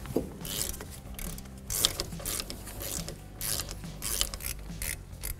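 Hand ratchet with a 7 mm Allen socket clicking in short bursts, about two a second, as it is swung back and forth to unscrew a brake caliper's bottom slider bolt.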